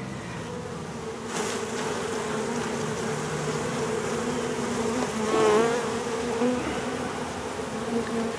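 A large cluster of honeybees buzzing with a steady hum. About five seconds in, the buzz briefly grows louder and wavers in pitch.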